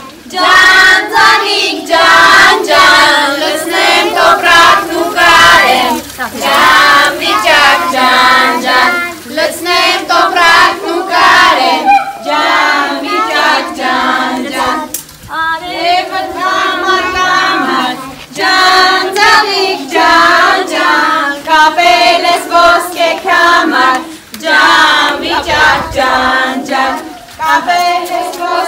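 A group of young children singing together with women, a folk song of the Armenian Ascension-day (Hambardzum) rite, in phrases of a few seconds with short breaks between.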